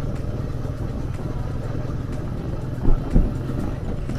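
Motorcycle engine running steadily while riding at road speed, a continuous low rumble with wind and road noise. Two short thumps come close together about three seconds in.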